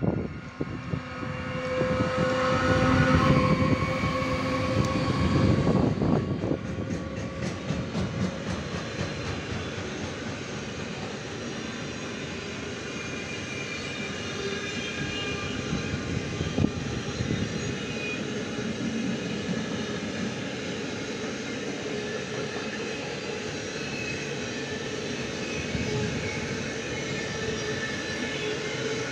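Electric freight locomotive passing close by, loudest a few seconds in, followed by a long train of loaded car-carrier wagons rolling steadily past on the rails.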